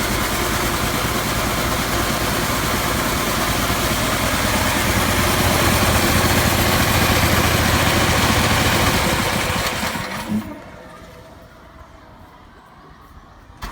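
Quincy 13 hp two-stage air compressor running steadily, then winding down and stopping about ten seconds in, with one brief sharp sound as it stops.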